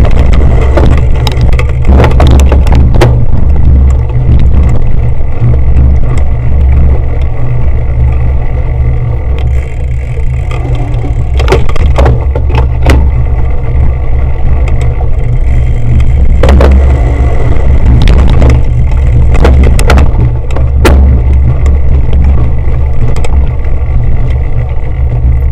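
Heavy wind and ride rumble on a camera carried on a cyclocross bike riding over rough grass, with sharp clacks and rattles now and then as the bike jolts over bumps.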